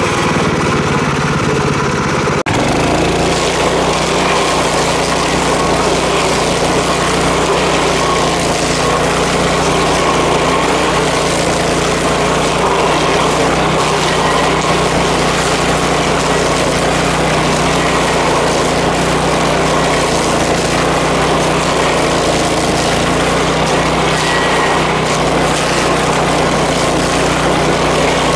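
Power King stump grinder running steadily at working speed. About two and a half seconds in the sound changes abruptly, then carries on steady.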